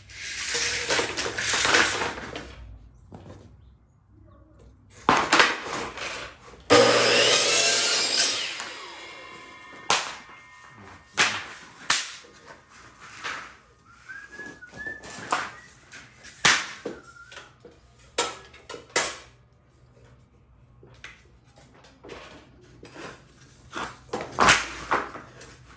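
Miter saw cutting crown molding: three bursts of cutting, about a second in, at five seconds and at about seven seconds, the last the longest. After the cuts, a string of sharp knocks and clicks as the trim pieces are handled and set against the saw.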